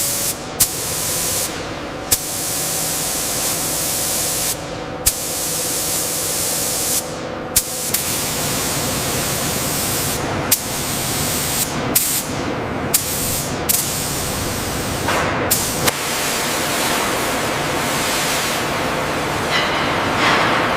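Steady loud hiss, like a spray, broken by about a dozen abrupt cuts, with a sharp click at most of them.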